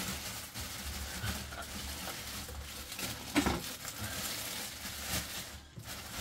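Thin clear plastic bag rustling and crinkling as hands pull it off an RC truck, with one sharper crackle about three and a half seconds in.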